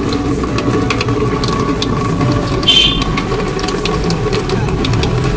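LG RO purifier's freshly replaced booster pump running with a steady hum, with water from the outlet tube spattering into a steel sink.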